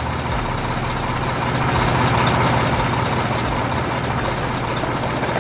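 Sound effect of a heavy truck engine running steadily with a low, even drone, accompanying toy dump trucks driving off.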